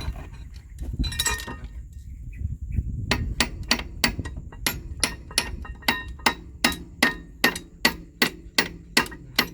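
A hammer striking repeatedly to drive a new oil seal into its housing on an excavator, in quick even blows about three a second, starting about three seconds in.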